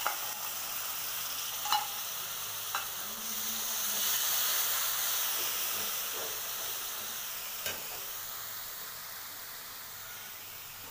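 Wet masala paste sizzling and frying in hot oil in a metal kadhai, stirred with a metal spatula that clinks against the pan a few times. The sizzle swells about four seconds in, then slowly dies down.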